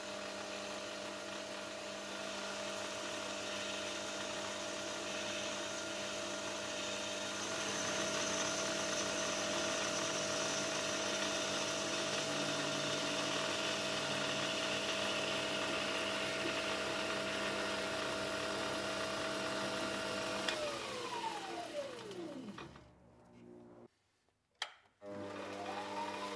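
Electric motor of a metal-cutting machine tool running steadily while cutting a grip pattern into a metal knob, with a cutting hiss that grows louder a few seconds in. About twenty seconds in the motor is switched off and its pitch falls as it spins down to near silence; after a sharp click it starts again, its pitch rising back up near the end.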